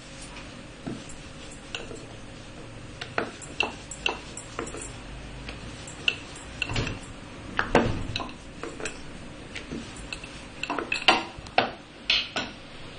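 Irregular clicks and knocks of a wooden rolling board and rolling pin as a floured ball of puri dough is pressed and rolled out, the knocks coming faster near the end.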